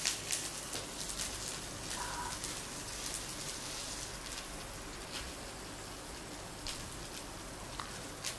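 Beef cubes and vegetables sizzling on a paper-lined tabletop grill dish over a small flame: a steady crackling hiss with scattered sharp pops of spattering fat.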